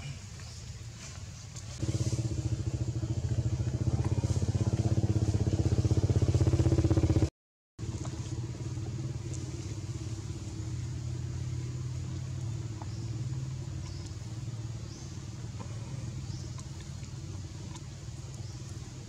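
A motor engine running steadily at a constant pitch, louder for a few seconds, then cut off for about half a second a little past seven seconds in, after which it continues more quietly.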